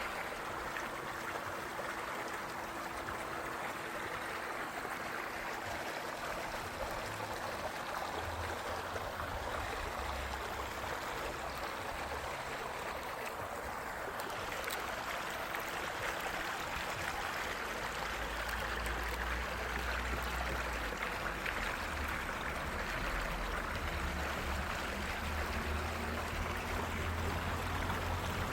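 Steady rush of running water, with a low rumble coming in from about eight seconds in.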